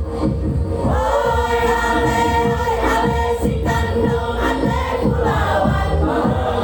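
Choir singing over recorded backing music with a steady beat; the voices come in about a second in and hold long notes.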